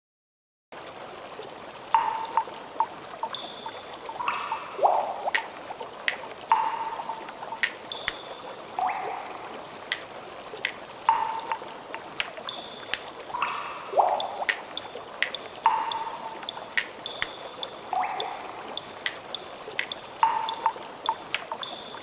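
Shallow stream trickling and gurgling over a steady low rush, with frequent bright plinks and drips of water, the louder ones sliding down in pitch. It starts under a second in, after silence.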